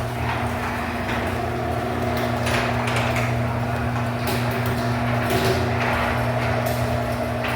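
Garage door opener motor running as the door travels: a steady electric hum with repeated light rattles and clatters from the moving door.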